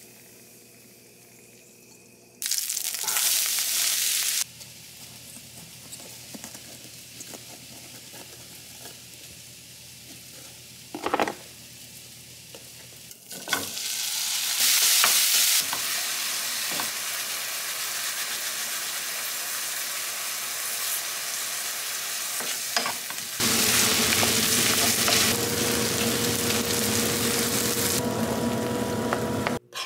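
Ground beef frying and sizzling in a hot nonstick skillet, with a spatula stirring it together with diced peppers and onions near the end. The sizzle grows loud about two and a half seconds in, again from about thirteen seconds, and loudest over the last six seconds.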